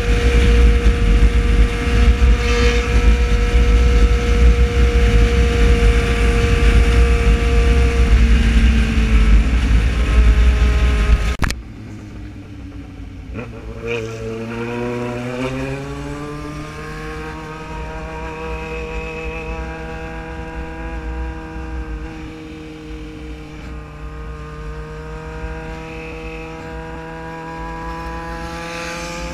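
Inline-four motorcycle engine cruising at a steady speed under heavy wind rumble on the microphone. After an abrupt cut about eleven seconds in, the wind is much lower and the engine revs up as the bike accelerates, then runs on steadily with its pitch slowly climbing.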